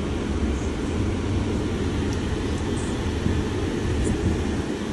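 Steady low rumble and hiss heard inside the cabin of a Mercedes-Benz E 350 sedan.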